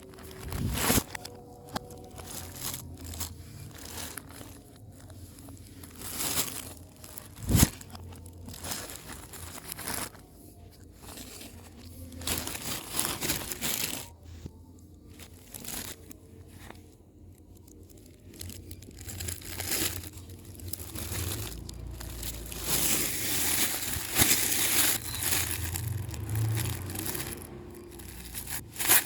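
Packaging being handled and opened: irregular crinkling and rustling with a few sharp knocks, growing busier and louder in the last several seconds.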